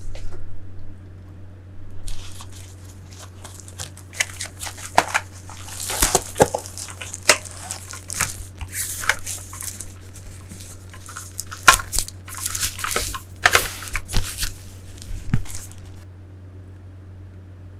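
Packaging being handled during an unboxing, crinkling and rustling with irregular crackles and a few sharp clicks. It starts about two seconds in and dies away shortly before the end.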